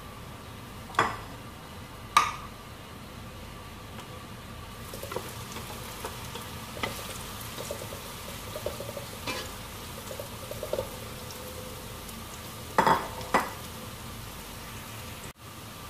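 Chopped tempe frying in a wok of oil with a steady sizzle, stirred with a metal spatula that scrapes and knocks on the wok. Sharp clanks come about a second in, again a second later, and twice in quick succession near the end.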